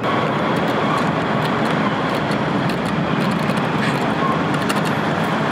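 Steady city traffic noise, with a few light clicks from an elevator call button being pressed over and over.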